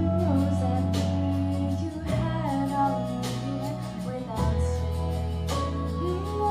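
A song with a singing voice over guitar and sustained bass notes, the chords changing about every two seconds.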